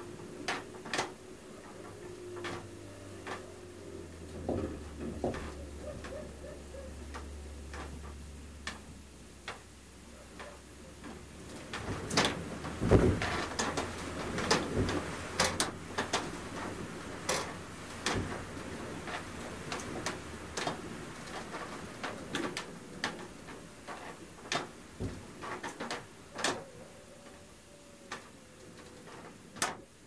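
Blizzard wind heard from inside a house, with loose window shutters knocking and rattling at irregular intervals. A cluster of louder bangs comes about twelve to sixteen seconds in, over a low rumble, and a faint whistle of wind sounds near the start and again near the end.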